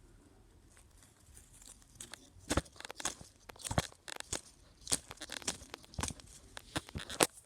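Paper cutouts being handled: irregular rustling, crinkling and clicks begin about two seconds in, the loudest near the end.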